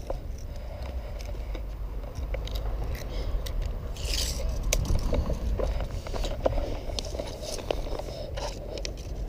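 Footsteps crunching on gravel, with scraping and rustling of clothing against a body-worn camera's microphone over a low rumble of handling noise; the crunching is loudest about four seconds in.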